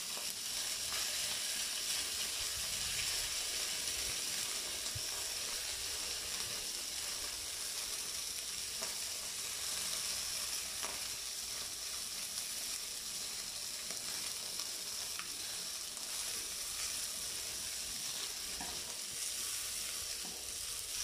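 Boneless chicken leg sizzling steadily in hot fat in a frying pan as its skin is seared to golden brown.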